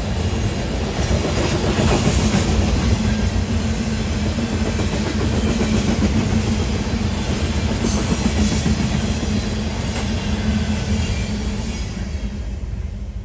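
Freight train of tank cars rolling past, steel wheels running over the rails with a steady rumble. It fades away near the end as the last car goes by.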